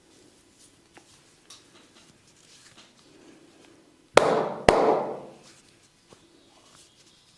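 Head massage by a barber: two loud, sharp cracks about half a second apart, a little past halfway, each trailing off within a fraction of a second. Faint rustling and small clicks of hands on hair and scalp come before and after.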